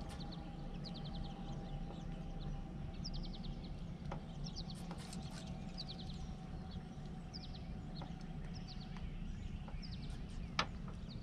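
Birds chirping in short repeated runs of high, falling notes, about one run a second, over a steady low hum. A single sharp click comes near the end.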